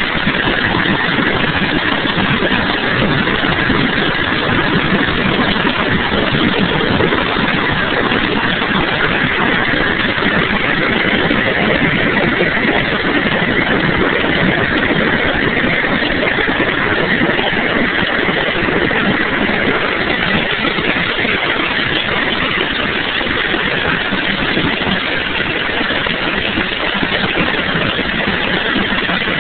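Loud, steady cabin noise of a UH-60 Black Hawk helicopter in flight, heard from inside near the gunner position: its twin turboshaft engines, rotor and transmission running without letup.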